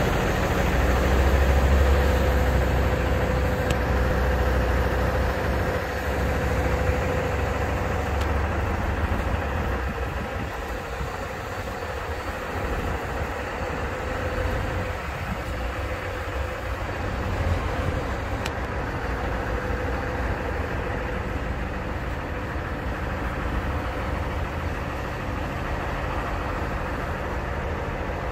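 Truck engine idling steadily: a low rumble that is heaviest for the first six seconds or so, with a constant hum over it.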